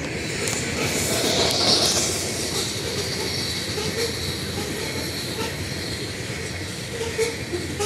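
Union Pacific coal train's hopper cars rolling past: a steady rumble of steel wheels on rail with repeated clacks at the rail joints. The wheel noise brightens briefly at the start.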